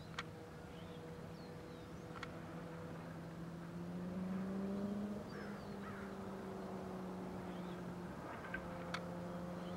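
A steady engine hum that drifts slowly in pitch and swells briefly in the middle, with a few sharp clicks and faint bird chirps.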